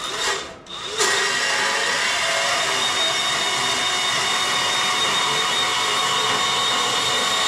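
Electric power tool motor starting up about a second in and then running steadily at an even speed, with a constant whine, as metal framing for a steel tool box lid is worked.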